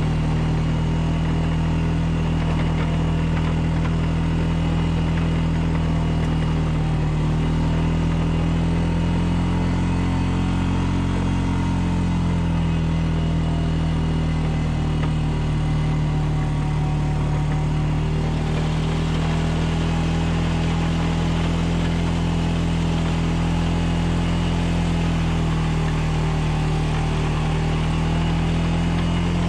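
Honda Rancher ATV's single-cylinder four-stroke engine running steadily at low speed, rising a little in pitch and settling again about a third of the way in. From about two-thirds through, a steady hiss joins it as the front-mounted plow blade pushes snow.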